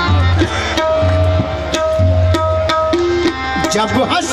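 Tabla and harmonium playing an instrumental passage of Sufi devotional music: deep bass drum strokes about once a second with sharper finger strokes, and a harmonium holding one long note through the middle.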